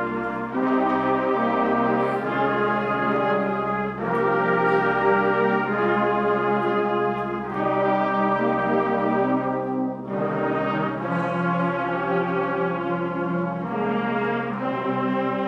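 A large brass band (agrupación musical) playing a march in full, sustained chords over a held low bass note, the harmony shifting every few seconds.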